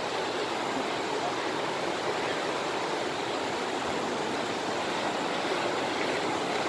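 Mountain river running over rapids: a steady, even rush of water.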